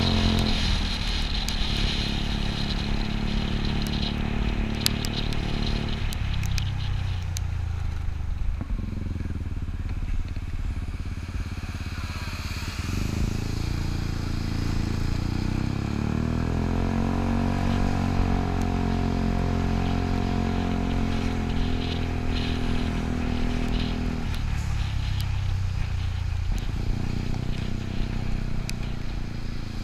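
Yamaha Cygnus scooter's single-cylinder engine running under way. Its pitch drops as it slows about six seconds in, rises in a long glide as it accelerates around the middle, and drops again near the end, over tyre and wind noise on a wet road.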